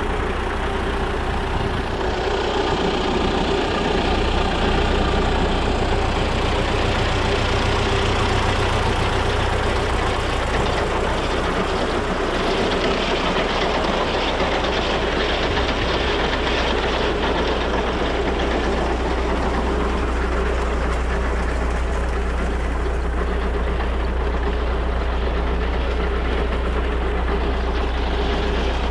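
MTZ-82 Belarus tractor's four-cylinder diesel engine running steadily, heard from inside the cab.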